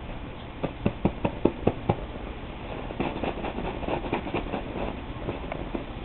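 A kitten scampering and scrabbling during play: a quick run of about six sharp taps early on, then a busier patter of light scratching clicks.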